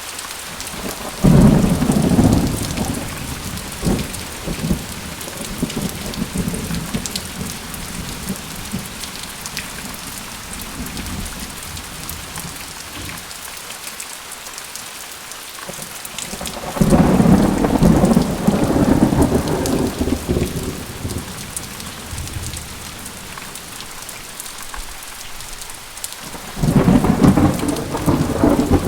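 Steady rain falling in a thunderstorm, with three rolls of thunder: one about a second in, one just past halfway and one near the end, each coming on suddenly and rumbling away over several seconds.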